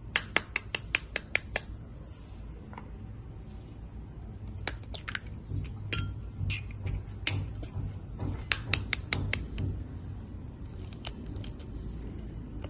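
Eggs tapped with a knife and cracked open over a glass bowl: a quick run of sharp taps at the start, then scattered clicks and cracks as two eggs are broken into the bowl.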